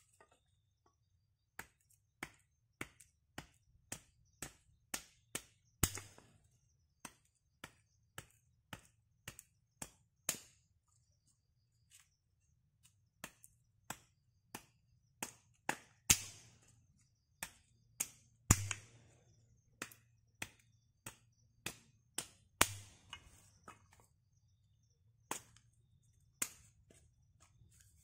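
Chopping with a blade: a run of sharp strikes at about one to two a second, broken by short pauses, some much louder than the rest with a brief ringing after.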